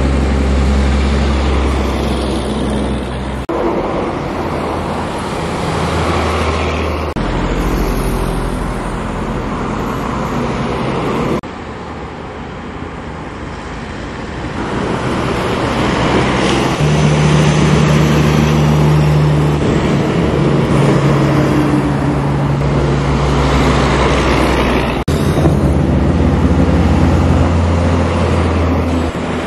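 Highway traffic with heavy trucks driving past: a steady, loud drone of diesel engines and tyre noise. The sound changes abruptly several times, as one passing vehicle gives way to another.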